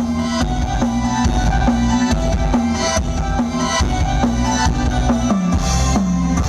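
Music with a drum kit and a bass line played loud through a large PA sound system during a sound check; the bass slides downward near the end.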